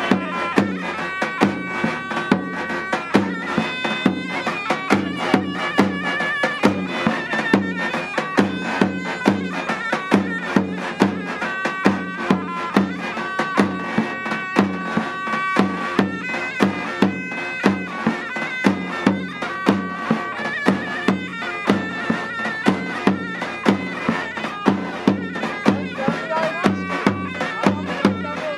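Turkish folk dance music on a davul bass drum, struck with a stick in a steady beat, and a shrill reed wind instrument playing a wavering melody of held notes.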